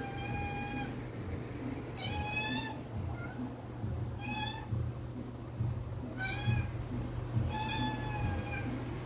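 Tabby house cat meowing over and over, about one meow every two seconds, each under a second long. It is begging to have its food container opened.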